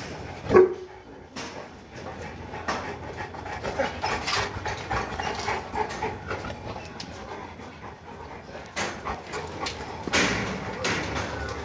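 Boerboel mastiffs in a kennel yard: one loud bark about half a second in, then irregular dog panting, whining and movement.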